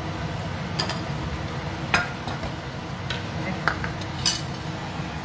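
About five sharp clinks and knocks of a metal mesh strainer and utensils against a stainless-steel frying pan as fried fish pieces are tipped in and stirred, the loudest about two seconds in, over a steady low hum.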